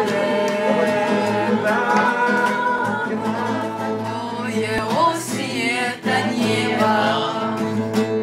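Acoustic guitar accompanying singing in a song.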